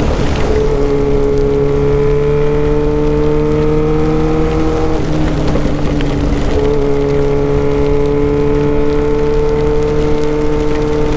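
Yamaha XJ6's inline-four engine with an open exhaust pulling under load, its pitch climbing slowly through one gear, dropping at a shift about five seconds in, then climbing again through the next. A steady hiss of wind and rain sits underneath.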